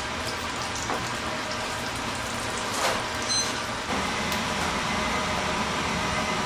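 Hot oil in a commercial deep fryer sizzling steadily as flour-coated chicken pieces for karaage are dropped in. A short high electronic beep sounds about halfway through.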